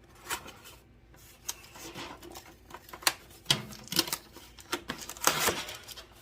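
Stainless steel mesh food dehydrator trays being slid into the dehydrator's slots. They give a run of irregular light clicks and clatters, loudest about five seconds in.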